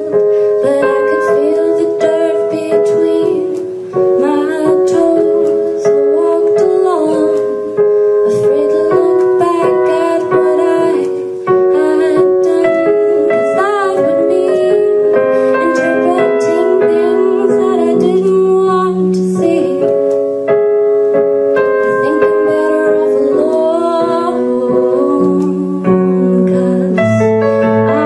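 A woman singing to her own keyboard accompaniment: held piano-voiced chords played on a stage keyboard under her sung melody, with lower bass notes joining in during the second half.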